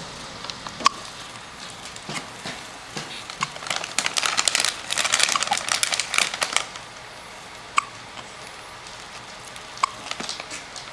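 Hiccups: short, sharp catches about a second in and twice near the end, with a stretch of rustling in the middle.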